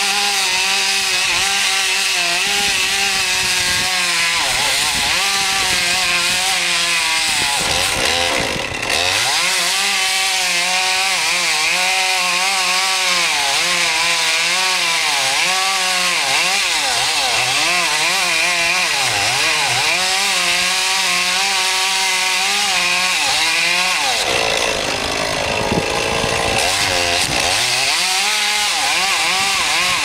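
Gas chainsaw at full throttle cutting into a thick tree trunk, its pitch dipping and recovering as the chain bogs in the wood. The engine drops off briefly about nine seconds in and eases for a few seconds near the end before cutting on.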